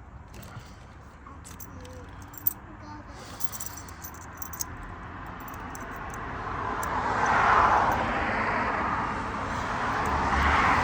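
Light metallic clicks and clinks from handling a battery terminal and wire, with one sharper click about two and a half seconds in. From about the middle, the noise of a passing vehicle swells up, peaks, eases and rises again near the end.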